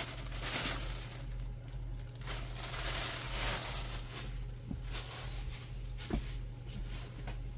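Faint rustling in soft swells over the first few seconds and a couple of light clicks later, over a steady low hum.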